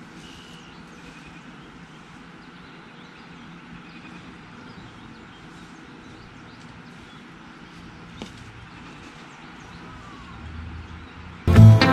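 Quiet rural outdoor ambience: a low steady background with a few faint bird chirps and a single small click about eight seconds in. Acoustic guitar music cuts in loudly right at the end.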